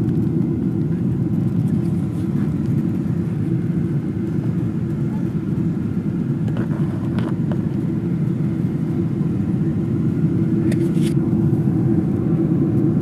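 Airliner cabin noise: the steady low rumble of the jet engines and airflow heard from inside the passenger cabin, with a couple of faint ticks about halfway through and near the end.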